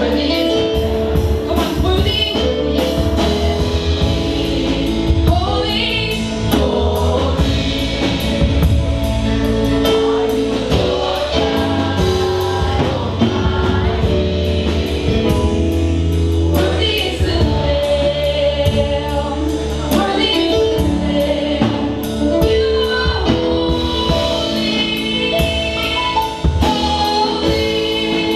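Gospel worship song sung by several voices over a band, with a drum kit keeping a steady beat.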